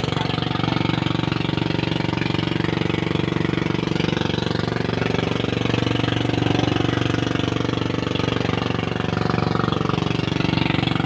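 Boat engine running steadily, with a gentle rise and fall in pitch about halfway through.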